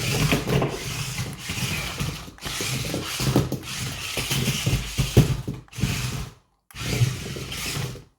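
Small electric motors and plastic gearboxes of a BEZGAR TD203 RC stunt car whirring and clattering as it drives. The sound comes in several stretches broken by brief silences.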